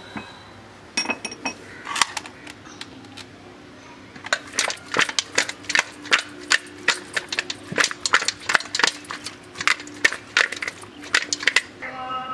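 Stainless-steel bowl knocking and clinking on a concrete floor as quail pieces are mixed by hand with masala paste: a few knocks about a second in, then an irregular clatter of several knocks a second from about four seconds in until near the end.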